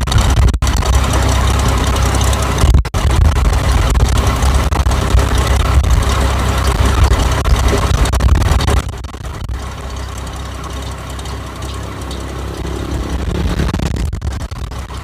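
Rice combine harvester's engine running loudly with heavy machine noise, dropping sharply in level about nine seconds in.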